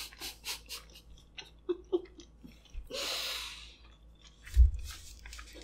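A person chewing a mouthful of sushi, with many small wet mouth clicks and smacks. A long breath out comes about three seconds in, and a low thump a little past four and a half seconds.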